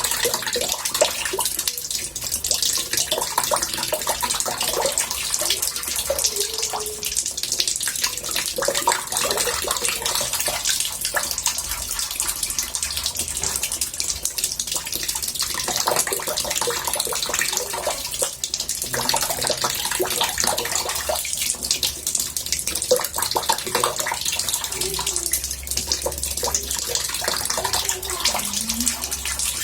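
Water running into a bathtub with a steady splashing hiss, scattered with small gurgles and bubbling.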